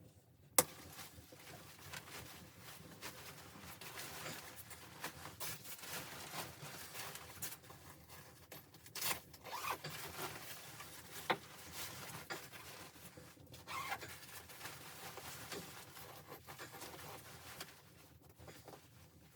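Irregular rustling and scraping with scattered sharp clicks, the loudest about half a second in.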